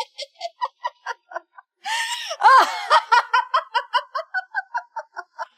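A woman laughing triumphantly: a long run of quick "ha-ha" pulses, about four or five a second, with a louder burst of laughter about two seconds in.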